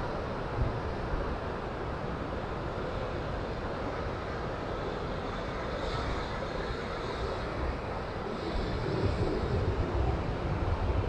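Ocean surf breaking and washing up a sandy beach, a steady rush, with wind buffeting the microphone in uneven low rumbles that grow stronger in the second half.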